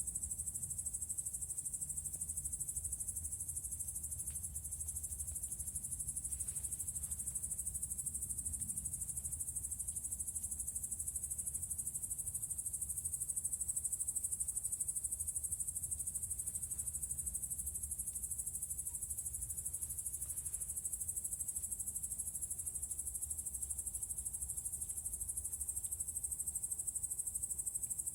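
A steady, high-pitched chirring insect chorus, with a low steady rumble underneath and a few faint short noises now and then.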